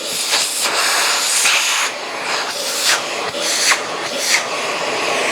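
Dyson Slim Ball upright vacuum running at full suction: a loud, steady rushing hiss of air with irregular fluttering surges, drawing much more power than the Hoover.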